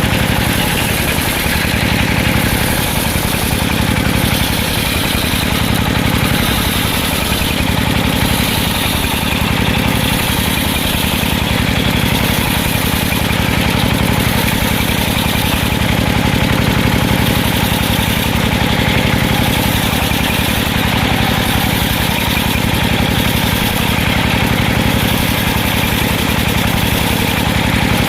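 Engine driving a circular sawmill, running steadily.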